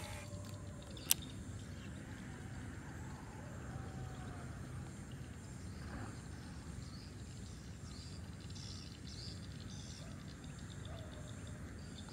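Outdoor ambience: a low steady background noise with faint high bird chirps past the middle, and one sharp click about a second in.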